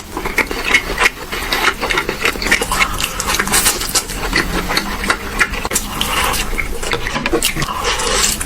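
Close-miked chewing: a rapid, continuous run of crisp crunches and clicks as food is bitten and chewed.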